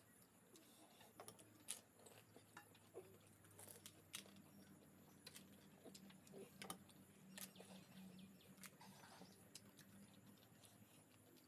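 Near silence, with faint scattered clicks and crackles a second or two apart and faint bird chirps in the background.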